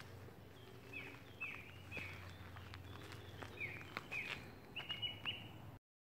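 A woodland bird calling a run of short chirps, each falling a little in pitch, over a faint low hum, with a few light clicks; the sound stops abruptly just before the end.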